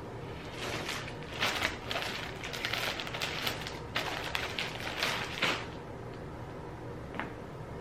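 Plastic packaging crinkling and rustling in irregular bursts for about five seconds as clothes are unwrapped, then a single light click, over a steady low background noise.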